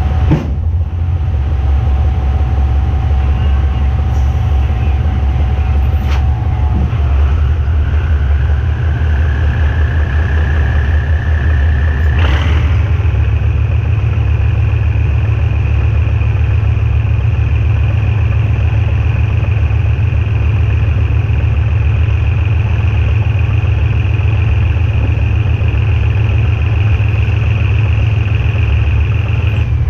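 GE diesel-electric locomotive running with a loud, steady low rumble and a whine that slowly climbs in pitch, then jumps higher about twelve seconds in and holds. A few sharp clicks are heard along the way.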